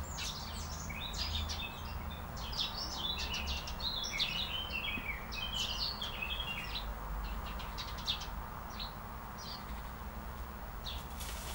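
Small songbirds chirping and twittering in quick high notes, busiest through the middle, over a low steady rumble.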